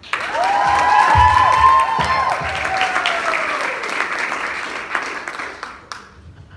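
A room of people clapping and cheering, with whoops over the first few seconds. It starts suddenly and dies away after about six seconds.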